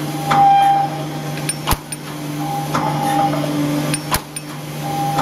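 High-speed roll-type welded wire mesh machine running: a steady hum under a repeating work cycle, with a short tone and a sharp metallic clank about every two and a half seconds, clanking twice.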